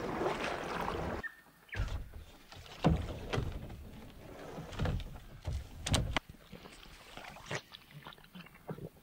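Kayak paddle strokes splashing through a shallow river, then, about a second in, calmer water with irregular splashes and low thumps around a plastic kayak as a person and a dog wade beside it.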